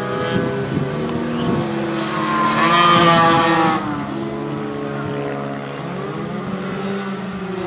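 Racing motorcycle engines running at speed on the track, several engine notes overlapping. One bike gets louder and passes close about three seconds in, then fades.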